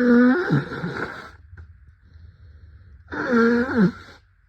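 Two long honking nose blows through a heavily congested nose from a head cold. The first is at the start and the second comes about three seconds in.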